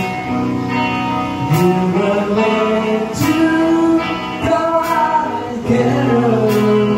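Live rock band playing: electric guitars, drums and male singing, with a sharp drum accent roughly every second and a half.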